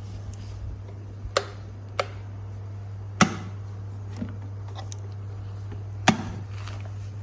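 A plastic electric kettle and its base being handled: a few sharp clicks and knocks, four of them louder, over a steady low hum.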